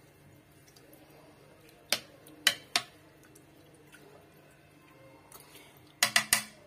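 Sheep tripe, lung and intestines being mixed by hand with water and spices in a stainless steel pot, quiet, with a few sharp clicks against the pot about two seconds in and a quick run of clicks near the end.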